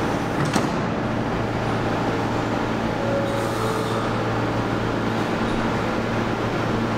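R160 subway train standing at the platform with its doors closed, running with a steady low hum, with one sharp click about half a second in.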